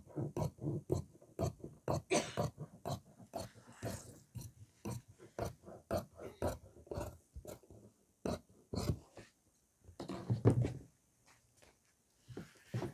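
Large tailor's shears snipping through heavy coat fabric on a table: a steady run of short, crisp cuts at about three a second. They thin out after about eight seconds. About ten seconds in there is a louder burst of fabric-handling noise.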